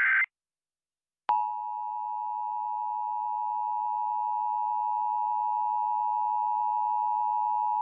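The tail of a screeching digital EAS header burst, then about a second later the Emergency Alert System two-tone attention signal: a steady, harsh two-pitch beep that holds without a break.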